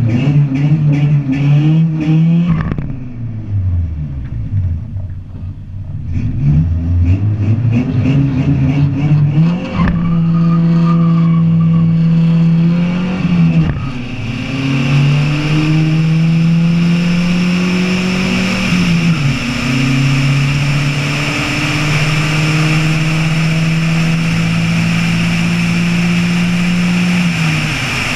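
Toyota pickup's engine at full throttle, racing a Nissan pickup side by side: the engine note climbs, then drops sharply at each upshift, four or five times. Wind rushes over the microphone and grows louder as the speed builds.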